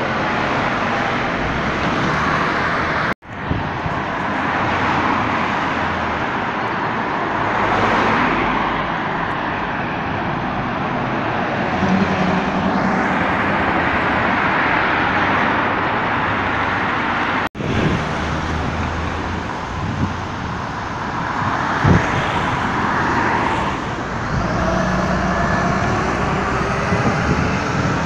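Street traffic: buses and cars driving past close by, with engine rumble and tyre noise. The sound cuts out sharply twice where the recording jumps to a new shot.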